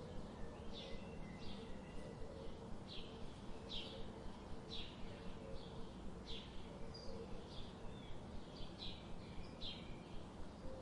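Small birds chirping in short, high, repeated tweets, about one or two a second, over a steady low background hum.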